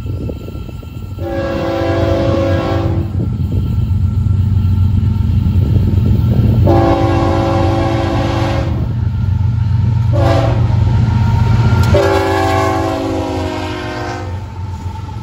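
Diesel freight locomotives sounding a multi-note air horn in the grade-crossing pattern, long, long, short, long, over the low rumble of the engines, which grows louder as they draw near.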